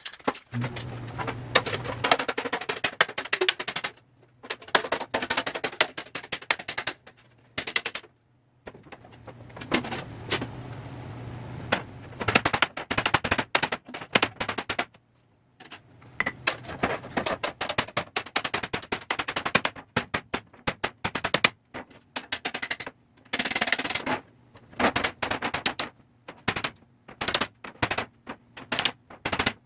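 Hammer blows on a thick aluminum railroad crossing sign being beaten back straight: fast runs of sharp metal strikes in bursts of a few seconds, with brief pauses between them.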